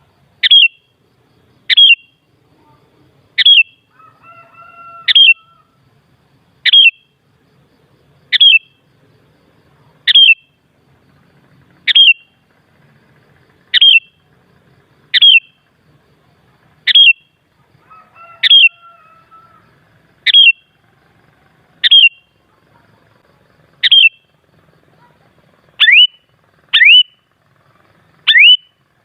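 Sooty-headed bulbul (kutilang) giving a loud, short, sharp call over and over, about one every one and a half to two seconds; near the end the calls turn into quick upward sweeps. Fainter lower warbling twice in the background.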